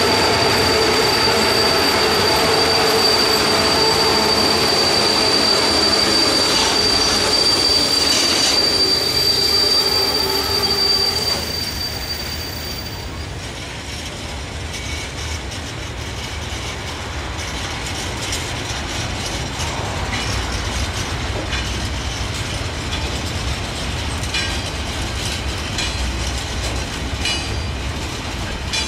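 Long freight train of covered and tank wagons rolling past close by, its wheels squealing in one steady high tone for about the first dozen seconds. The sound then drops to a quieter rumble of wheels on rail with occasional light clicks.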